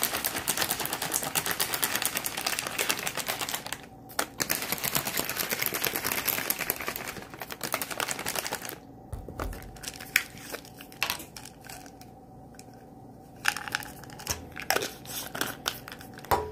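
Plastic being handled: dense crinkling and crackling for about eight seconds, with a short break about four seconds in, then scattered light clicks and taps.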